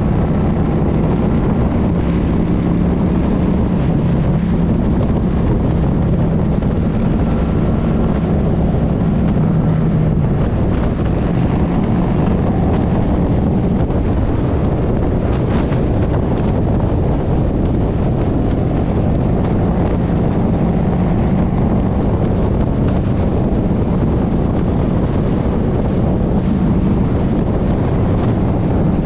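Motorcycle engine running steadily at cruising speed under heavy wind rush on the microphone.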